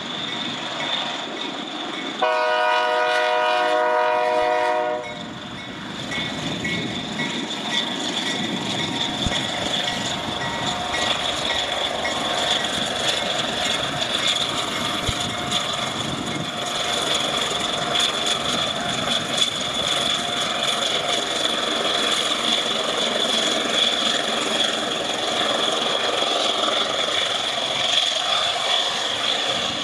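A diesel locomotive's horn sounds one chord-like blast of about three seconds, a couple of seconds in. After it, the locomotives' engines rumble steadily as they roll past, with wheel clatter on the rail joints.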